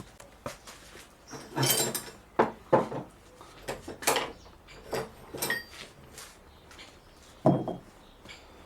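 Metal hand tools clattering and knocking, a series of irregular clanks spread over several seconds.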